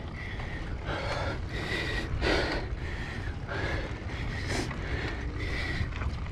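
Mountain-bike riding noise: a steady wind rumble on the microphone, with a rider's hard breathing coming as short rushes about once a second.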